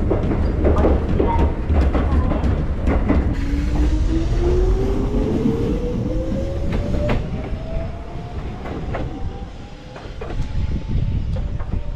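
Kōnan Railway electric train: a low rumble with wheels clicking over rail joints, then a motor whine that rises steadily in pitch for several seconds as the train pulls away and the sound fades.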